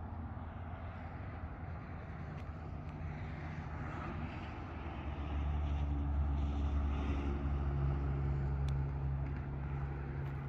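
An engine running steadily at a low pitch, growing louder about halfway through and easing off a little near the end.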